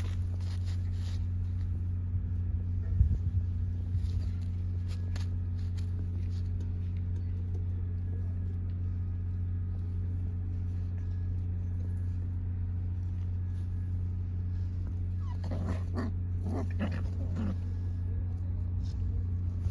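Puppies whimpering and yipping in short high calls, most of them bunched together near the end, over a steady low hum.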